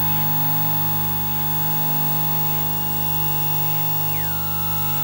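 Experimental electronic noise music: a steady, loud electrical hum and drone over hiss, with faint short chirps about every 1.2 seconds, and near the end a higher tone that slides down and holds.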